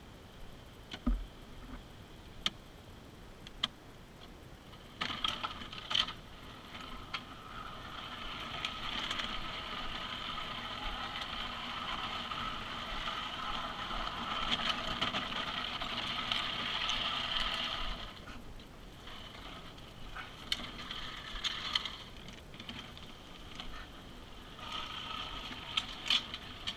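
Pink plastic ride-on toy jeep pushed by hand over pavement, its hard plastic wheels rattling as it rolls. A few sharp knocks come first, then a steady rattle for about thirteen seconds, then shorter stretches of rolling broken by more knocks as it is handled.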